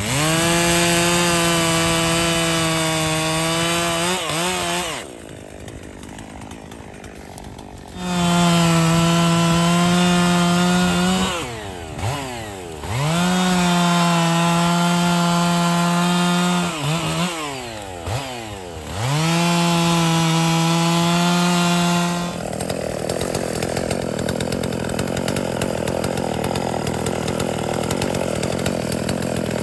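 Stihl MS 391 two-stroke chainsaw cutting wood at full throttle in four bursts of several seconds, the engine dropping off and revving back up between cuts. About 22 seconds in the saw's high whine stops and a duller, steady noise carries on.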